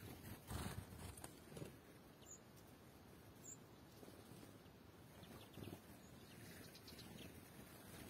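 Quiet outdoor ambience with a few faint, brief chirps from small birds drinking at a pond, and a few soft low rustles.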